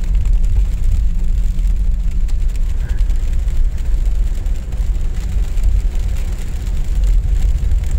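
Front-wheel-drive car driving on a snow-covered road, heard from inside the cabin: a steady low rumble.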